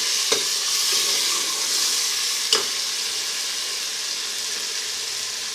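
Onion, garlic and tomato masala sizzling in hot ghee in a pressure-cooker pot, a steady frying hiss as it is browned. A steel spoon stirring it clicks against the pot twice, just after the start and about two and a half seconds in.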